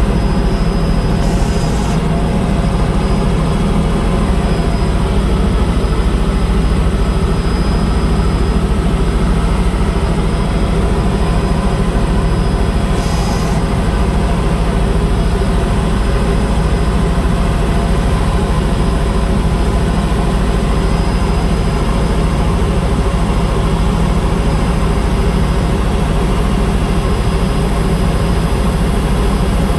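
Helicopter in flight: a loud, steady drone of rotor and engine with a thin high whine, unchanging throughout.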